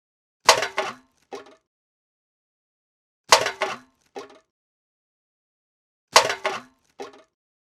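A metal can being thrown away, three times over. Each throw lands with a loud clattering clank, then a smaller knock under a second later as it settles.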